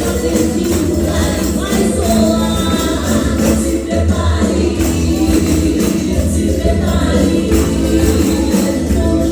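Gospel hymn played by a pandeiro group: several pandeiros (Brazilian frame drums with jingles) keeping a steady, even rhythm under group singing.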